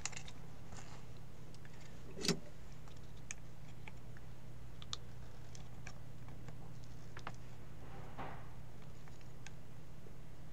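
Small clicks and taps of parts and tools being handled on a workbench, with one louder knock about two seconds in, over a steady low hum.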